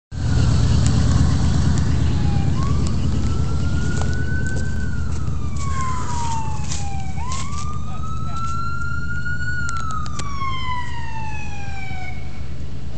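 Emergency vehicle siren wailing, its pitch sliding slowly up, holding, then falling, about two and a half times over, above a steady low rumble.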